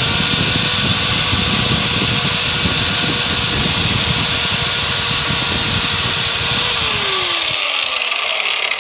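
Angle grinder running at full speed, its disc grinding along the steel edge of a lawn mower blade with a steady whine over a harsh grinding hiss. About seven seconds in it is switched off, and the whine falls away as the disc spins down.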